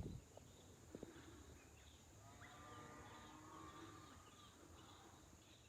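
Near silence: faint pasture ambience with a few light clicks and, in the middle, a faint drawn-out animal call.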